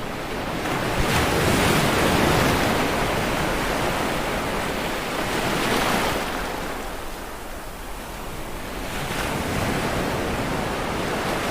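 Sea waves breaking and washing onto the shore, the rush of water swelling and ebbing in surges every few seconds.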